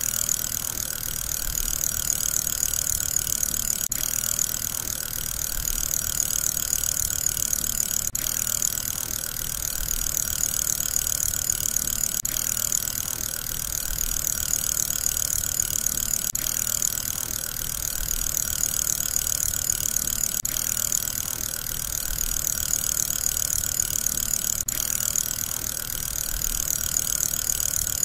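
Steady whirring of a spinning fidget spinner's ball bearing, with a gentle swell that repeats about every four seconds.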